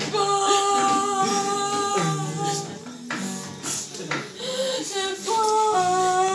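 Singing with music: one voice holds a long steady note, then sings shorter notes, and ends on two held notes that step down.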